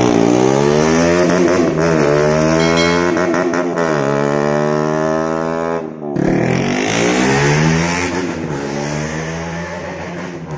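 KTM Duke 200's single-cylinder engine running loud through its modified stock exhaust, held at high revs with the pitch wavering. The revs drop off briefly about six seconds in, climb again, then ease down toward the end.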